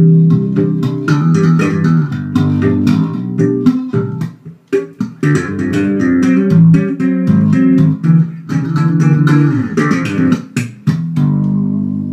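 Electric bass guitar played fast, with sharp, percussive attacks on the notes and chords. About eleven seconds in it ends on a held chord that rings out and fades.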